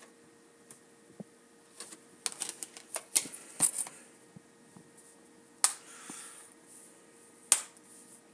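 Original PlayStation 3's slot-loading disc drive taking in a DVD: scattered sharp mechanical clicks and clunks, clustered about two to four seconds in, with single louder clicks later, over a faint steady hum.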